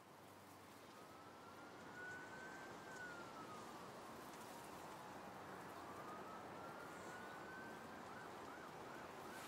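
Faint emergency-vehicle siren. It wails slowly up and down twice, then switches to a quick yelp near the end.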